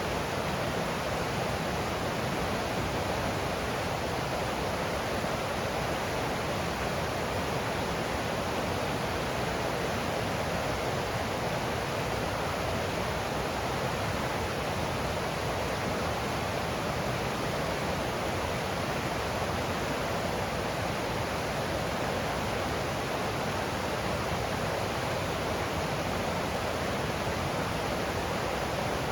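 Water of a forest stream rushing steadily over rocks, an even, unbroken rush.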